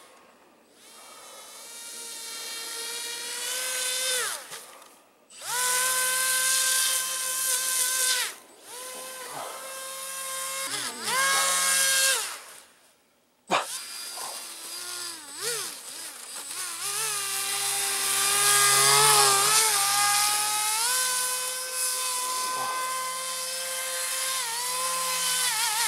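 AquaCraft Cajun Commander RC airboat's electric motor and propeller whining as it skims over snow on a 3S LiPo. The pitch rises and falls with the throttle, and the sound drops away briefly twice.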